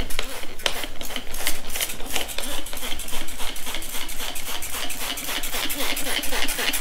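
Plastic trigger spray bottle pumped in quick repeated squirts, several a second, misting leak-check spray over a beadlock wheel's ring and tire bead to find air leaks.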